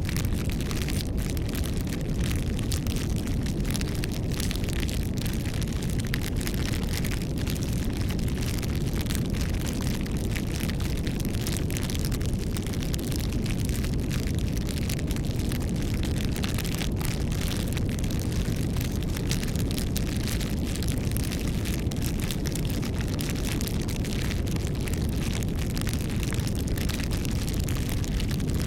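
Campfire burning: a steady low rush of flames with continual sharp crackles and pops from the burning wood.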